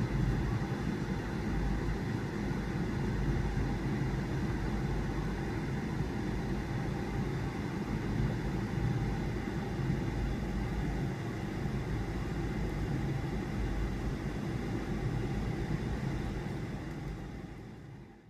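Steady low rumbling background noise, fading out near the end.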